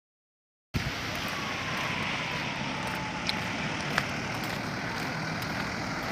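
Steady outdoor noise of rain and traffic on a wet road, cutting in abruptly under a second in after silence, with two sharp clicks about three and four seconds in.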